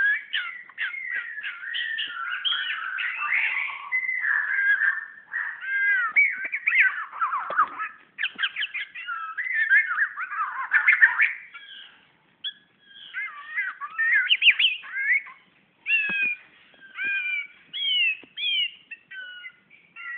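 Oriental magpie-robin singing at its own reflection in a mirror: a dense run of varied whistles, warbles and sliding notes for about twelve seconds, then shorter separate phrases with brief pauses between them.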